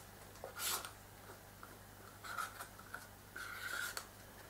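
Vegetable peeler scraping strips of skin off a raw butternut squash: three faint scraping strokes, the last one longer.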